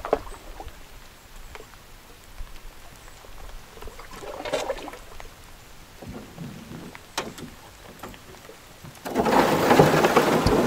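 Canoe being paddled up a shallow creek: a few light paddle knocks and soft water swirls. About nine seconds in, a much louder steady rush of water sets in as the canoe reaches rippling, faster water.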